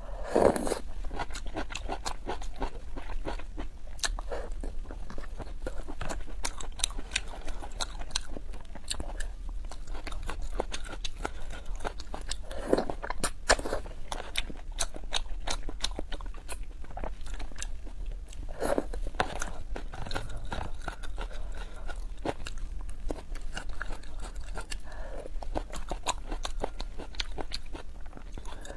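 Close-miked eating of wide noodles and vegetables in spicy broth: steady wet chewing full of sharp mouth clicks, with a few louder slurps as food is drawn in.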